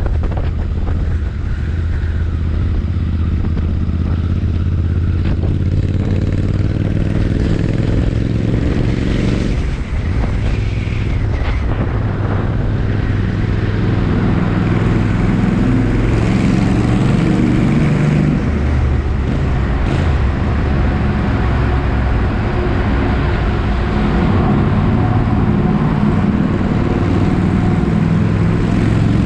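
Royal Enfield Interceptor 650's parallel-twin engine and exhaust running loud while the bike is ridden. The revs rise several seconds in, drop off briefly about ten seconds in, then pull on steadily.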